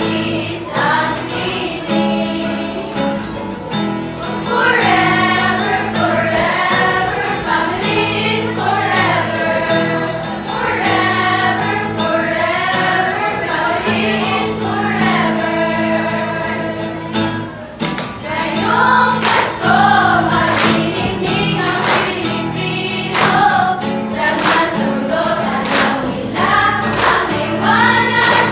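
A group of young women singing an upbeat song together, accompanied by a strummed acoustic guitar. From about two-thirds through, sharp percussive beats keep time with the song.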